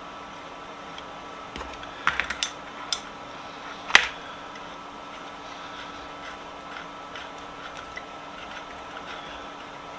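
Small metal vise parts being handled and fitted: a few light metallic clicks and clinks about two seconds in, then one sharp metal tap about four seconds in, over a steady faint hum.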